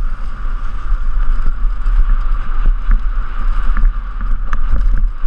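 Downhill mountain bike ridden fast over a leaf-covered dirt trail: wind buffets the helmet-camera microphone with a steady rumble and hiss, and the bike knocks and rattles over bumps.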